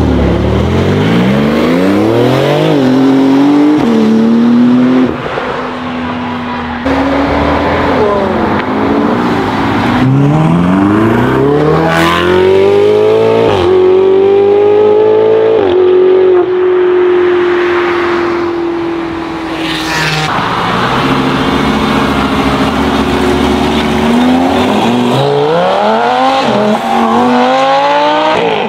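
Several sports cars accelerating hard one after another, among them a Porsche 911, a Ferrari and a Lamborghini Gallardo Spyder: each engine note climbs with the revs and drops sharply at every upshift. Midway one car's note holds steady and sinks slowly as it passes.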